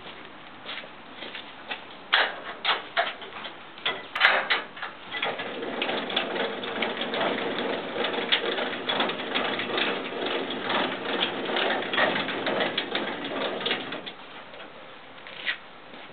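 Metal clicks and clanks from the steel tilt mechanism of a double-motorcycle trailer as the bed is released, then about nine seconds of continuous rapid clicking and rattling as the bed tips up into a loading ramp. The rattling stops suddenly near the end.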